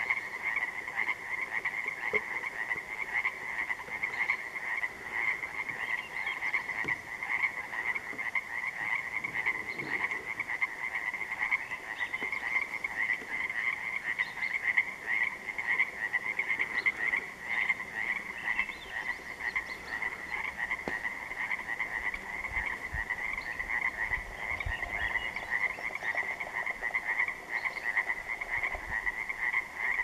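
A dense chorus of many Pacific tree frogs (Pacific chorus frogs) calling at once, a steady, unbroken mass of rapid pulsed calls.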